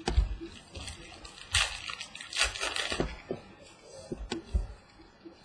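Baseball cards and packs being handled, with light clicks and rustles as cards are flipped through and a denser rustle between about one and a half and three seconds in.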